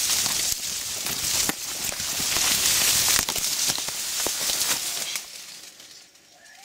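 Dry sugar cane leaves rustling and crackling as people push through a cane block at a run, with a few sharp snaps of stalks. The rustling dies down about five seconds in.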